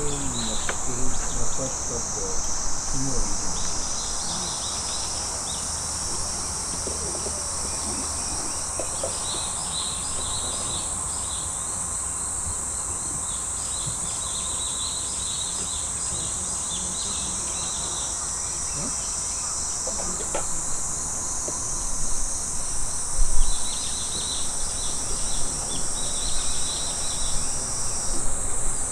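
A steady, high-pitched chorus of insects, with shorter chirping trills coming and going beneath it. There is a low thump about two-thirds of the way through.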